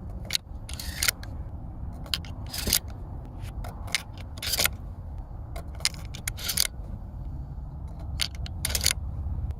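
Metallic clicks and short scrapes from a Winchester 1897 pump-action shotgun being handled, its parts clacking and sliding, over a steady low rumble.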